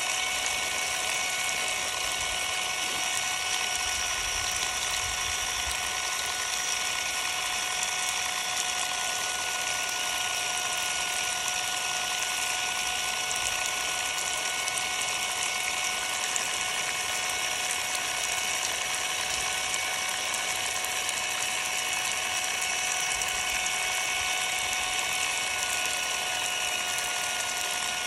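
Ryobi cordless impact driver running steadily with no load, a constant high motor whine, while drenched by a water spray that hisses over it.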